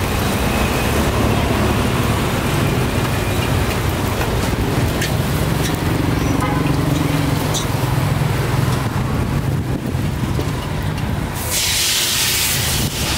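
Busy street ambience: the steady rumble of passing road traffic, with a loud hiss lasting about a second and a half near the end.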